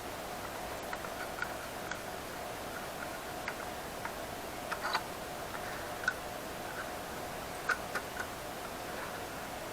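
Scattered small clicks and taps of a screwdriver and screws on metal as an SSD is screwed into a laptop's drive caddy, irregular and a second or so apart, over a faint steady hum.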